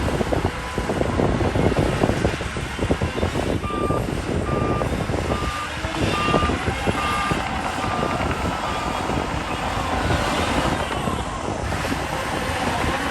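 Heavy earthmoving machinery's diesel engine running under load, with a reversing alarm beeping steadily, about one and a half beeps a second, from about four seconds in for some six seconds.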